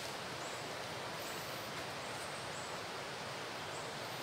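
Steady outdoor ambience by a forest pool: an even hiss with a few faint, short, high-pitched chirps.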